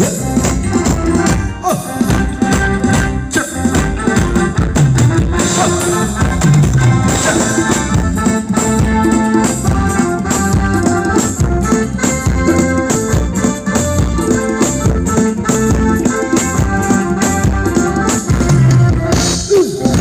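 Live band playing Thai ramwong dance music, loud and continuous: a drum kit keeps a steady beat under electronic organ.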